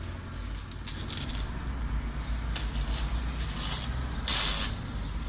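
Clicks and scrapes of a metal test probe and a hand working over a ceiling fan's copper-wound stator while its coils are checked for a break, with a louder rasping scrape about four seconds in. A steady low hum sits underneath.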